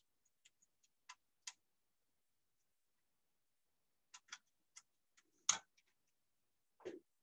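Faint, scattered clicks and taps of fingers working a flat ribbon cable into its connector in an opened DVD recorder's metal chassis. A sharper click about five and a half seconds in is the loudest, and a duller knock follows near the end.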